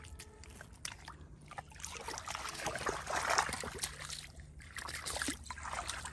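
Shallow muddy water splashing and sloshing as a boy wades through it and grabs at fish by hand, loudest about three seconds in.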